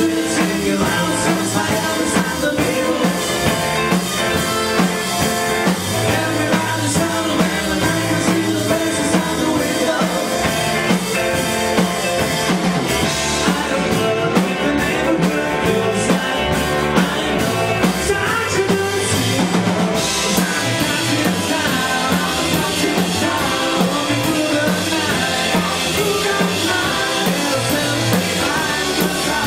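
Live power-pop rock band playing: electric guitars, electric bass and a drum kit, with a lead vocal sung over them. For several seconds in the middle the cymbals' hiss thins out, then comes back in full.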